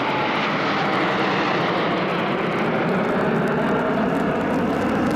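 A formation of nine JASDF F-15 and F-4 fighter jets flying over, their jet engines making a steady rumble.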